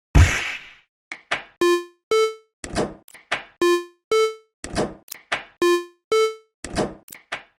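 Cartoon level-crossing warning sound effect: a synthesized two-note alarm alternating a low and a higher tone, one pair about every two seconds, over short percussive knocks, opened by a loud crash.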